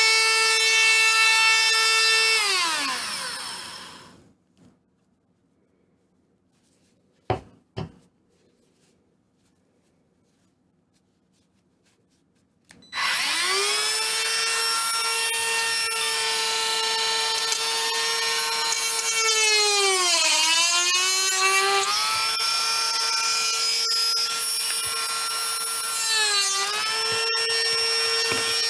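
Small handheld rotary tool with a grinding bit, its motor running with a high whine, then switched off and spinning down to a stop. After a pause with two clicks it is switched on again and spins up, the pitch sagging twice as the bit is pressed into the work.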